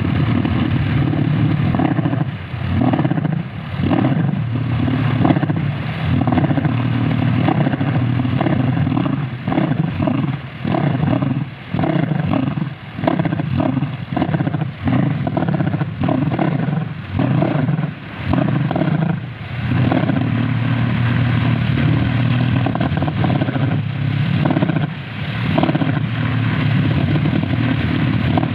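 Kolecer wind propeller spinning in the wind with a loud, deep, thunder-like drone that repeatedly dips and swells as the gusts ease and pick up.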